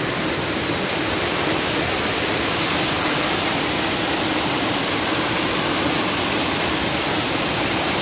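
A small river in monsoon flood, its muddy water rushing steadily and loudly over a washed-out road crossing.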